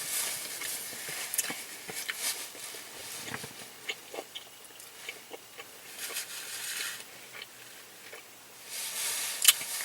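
Close-miked chewing and mouth sounds of people eating, with irregular small clicks and smacks and a few short rustling hisses.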